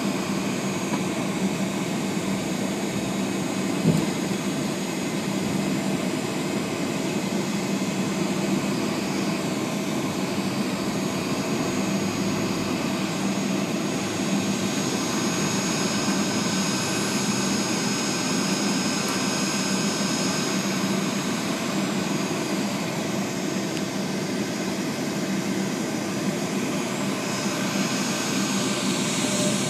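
Boeing 757-200's Pratt & Whitney PW2000 jet engines heard inside the cabin: a steady roar with a low hum and a faint high fan whine. A single short knock sounds about four seconds in.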